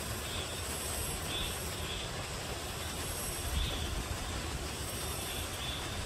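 Summer forest ambience: a steady high-pitched insect buzz with faint repeated chirps, over a low, fluctuating rumble of wind on the microphone.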